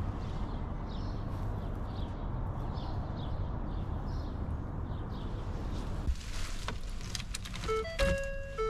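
Steady low rumble with small birds chirping over it. About six seconds in there is a thump and a few clicks, and near the end a repeating electronic chime tune of clear stepped tones starts up.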